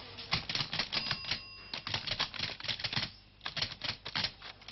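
Typewriter keys clacking rapidly, several strokes a second. A brief ringing tone sounds about a second in, and the typing pauses briefly near three seconds.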